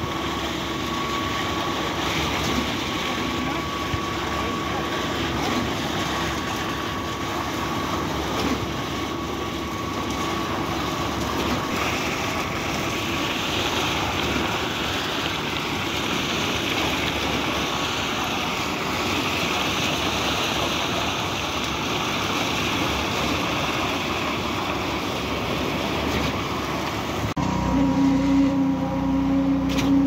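Concrete pump running steadily, delivering concrete through its end hose, a continuous mechanical drone with a faint steady whine. Near the end the sound changes abruptly to a louder, deeper engine drone with a steady hum, from the concrete mixer trucks on the site.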